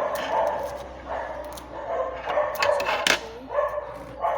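A dog whining and yipping in short, repeated pitched calls, with a few sharp crackles near the middle.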